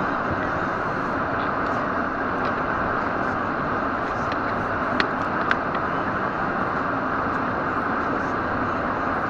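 Steady road and engine noise inside a moving car's cabin, with two sharp clicks about five seconds in, half a second apart.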